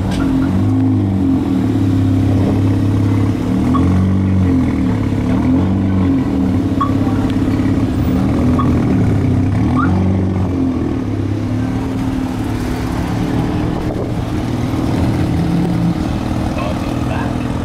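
Lowered pickup trucks driving slowly past one after another, their engines running at low speed with a steady low hum that rises and falls as each one goes by.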